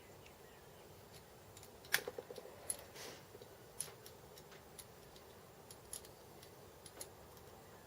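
Scattered light clicks and taps of small metal parts being handled and fitted during assembly of a steady rest, with a quick cluster of clicks about two seconds in and single ones later.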